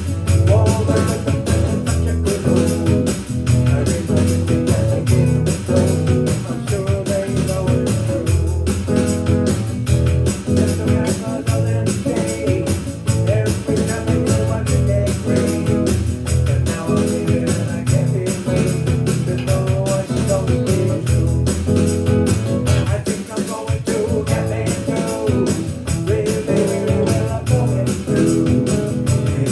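Rock song with a steady beat, mostly instrumental with little clear singing.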